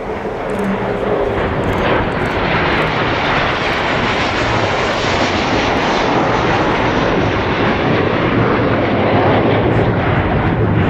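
Jet engines of two jet aircraft flying past together in formation: a loud, steady roar that builds over the first couple of seconds.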